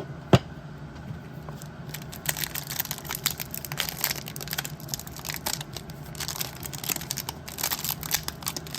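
A card pack's wrapper being crinkled and torn open, with a dense, irregular crackling that starts about two seconds in, after a single sharp click near the start.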